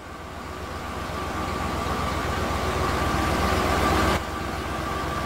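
Delivery van engine idling with a low, pulsing rumble, fading in from silence and growing steadily louder. About four seconds in it drops abruptly to a quieter hum.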